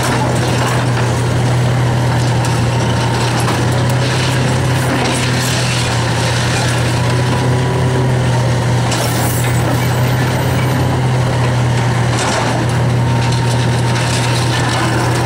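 An excavator's engine running steadily under load while its NPK SV500 hydraulic crusher works a chunk of reinforced concrete, with crunching and scraping of concrete and steel rebar. A few sharp clanks stand out, around four seconds in, about nine seconds in and near the end.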